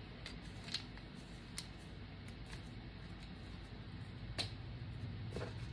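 Small craft containers being handled on a tabletop: a few scattered light clicks and taps over a low steady hum.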